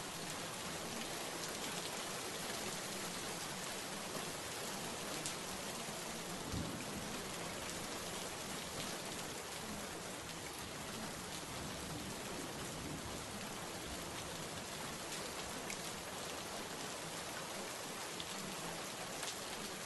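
Steady rain: an even hiss with scattered faint drop ticks throughout.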